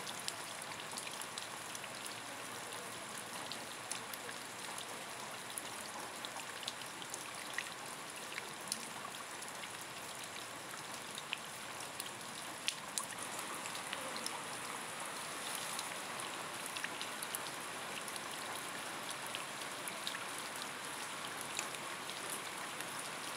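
Steady rain falling, with scattered individual drops ticking sharply against a hiss.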